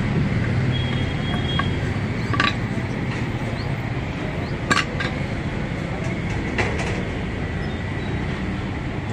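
Iron tyre levers clinking against a steel wheel rim while a car tyre's bead is being pried off the rim: a few sharp metallic clinks, the loudest about halfway through, over a steady low rumble.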